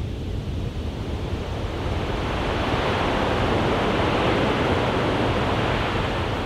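A surf-like sound effect opening a pop song: a rushing wash of noise, like breaking waves, that swells to a peak around the middle and eases off a little.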